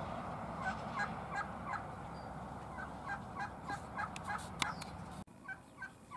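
Chickens clucking in a run of short calls, a few a second, with a sharp click about four and a half seconds in.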